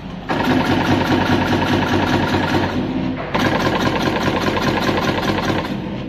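Automatic flat wire cutting, stripping and crimping machine running as flat ribbon cable is fed into it: a loud, fast, rhythmic mechanical clatter in two runs, with a short break about three seconds in.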